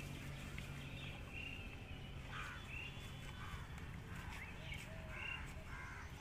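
Crows cawing several times, starting about two seconds in, over a faint outdoor hum.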